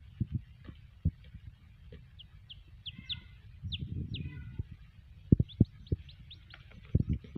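Baby chicks peeping in short, quick chirps, in scattered runs. A few dull low knocks, the loudest sounds, come a little past halfway and again near the end.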